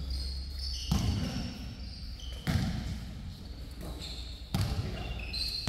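A basketball bouncing hard on a gym floor, three bounces roughly two seconds apart, each echoing in the hall, with short high-pitched squeaks between them.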